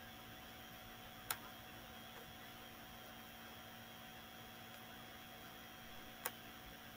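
Faint steady hum and hiss of room tone, broken by two sharp clicks about five seconds apart.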